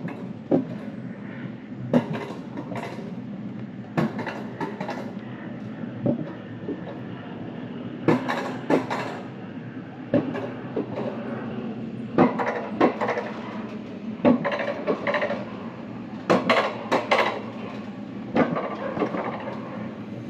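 Wiegand Alpine Coaster sled being hauled up the cable lift hill. A steady low hum runs under irregular metallic clacks and rattles from the sled on the tubular steel rails, often two knocks close together, every second or two.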